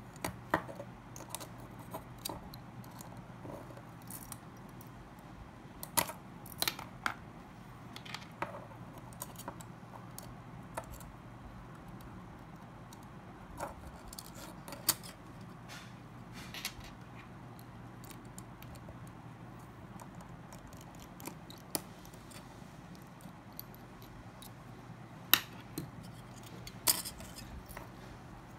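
Small clicks and taps of tools and parts being handled while a Samsung Omnia II phone is taken apart, coming irregularly, a few of them sharper, over a steady low hum.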